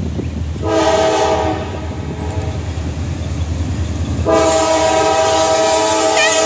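Diesel freight locomotive's multi-chime air horn sounding for the grade crossing: a blast of about a second, then a long blast starting about four seconds in, over the low rumble of the approaching train.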